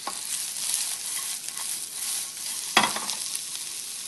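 Golden-browned potato gnocchi, sliced chestnuts, shallots and garlic sizzling in hot oil in a sauté pan as they are stirred. A single sharp knock comes a little under three seconds in.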